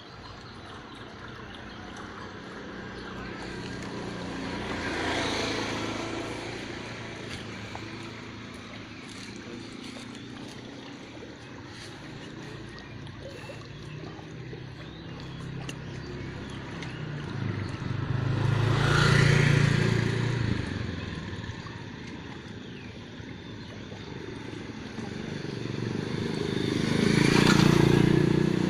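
Motor vehicles passing by on a nearby road, three times: one softer pass early, then two louder ones later, each swelling with a low engine tone and fading away over a few seconds.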